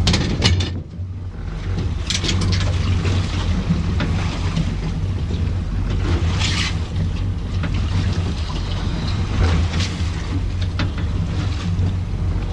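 A boat's motor running steadily, with wind on the microphone and a few short knocks.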